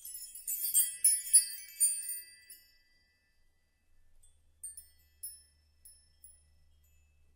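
Cartoon sound effect of high, tinkling chime notes: a quick flurry of overlapping ringing notes for about two seconds, then a few scattered single pings.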